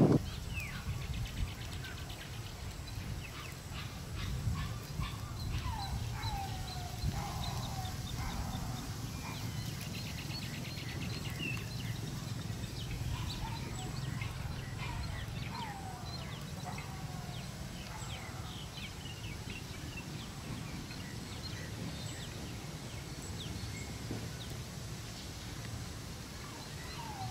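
Outdoor ambience: a steady low rumble with scattered short animal calls that fall in pitch, a few in quick succession a quarter of the way in and again around the middle, and faint high chirps.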